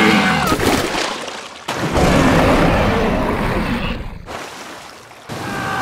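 Cartoon water splashes as a big fish leaps out and falls back in: a splash with a high, falling cry over it at the start, then a heavy splash about two seconds in that slowly fades. Cries rise again near the end.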